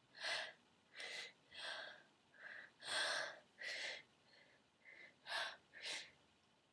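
A woman's short, breathy gasping in-breaths in an uneven series, about one every half second, the loudest about three seconds in, then stopping near the end. Her breath is catching in the build-up to a sneeze brought on by tickling her nose with a bobby pin.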